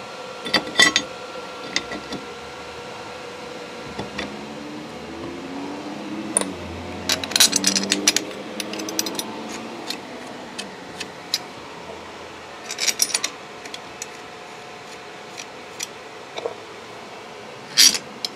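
Metal clinks and knocks as a Ford 3G alternator's rear housing is fitted back over the rotor bearing and its bolts are handled. They come in scattered clusters: a busy run of clicks in the middle, a few more later and a sharp clack near the end.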